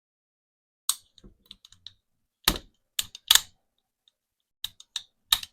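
Sharp clicks and light knocks, about seven at uneven intervals, from the AR-15 lower receiver and its parts being handled after the trigger install.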